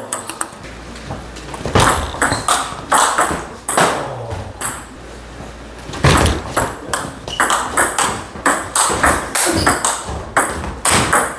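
Table tennis rally: the ball clicks off the rubber bats and bounces on the table in quick alternation. The hits come thick and fast about two seconds in, pause briefly, then run again from about six seconds until near the end.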